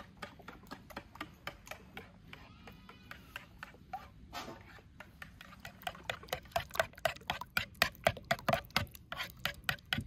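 Metal spoon beating a mixture in a bowl, clicking against the bowl's side in quick strokes. The strokes are sparse at first, then from about halfway come faster and louder, about four or five a second.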